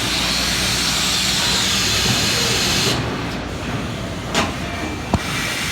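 Robotic stud-welding cell on a car body line. A loud, steady hiss cuts off about three seconds in, followed by one short sharp burst and then a click.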